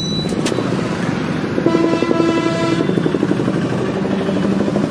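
Traffic: a vehicle engine runs with a steady pulsing rumble, and a horn sounds once for about a second near the middle.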